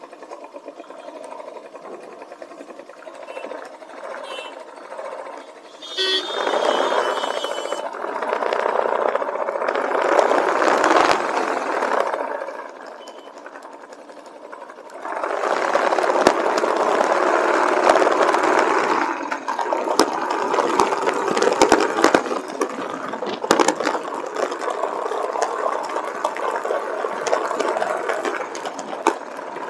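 Motorcycle engine running during a ride, with a fast, rattling mechanical beat. It gets louder about six seconds in and again about fifteen seconds in, as if accelerating.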